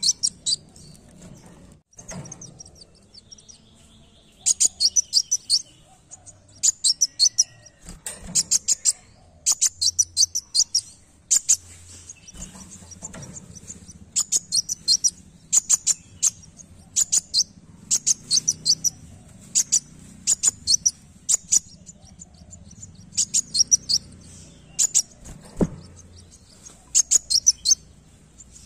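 Caged kolibri wulung sunbird singing: rapid runs of sharp, very high-pitched chips, each run about a second long, repeated with short pauses between them.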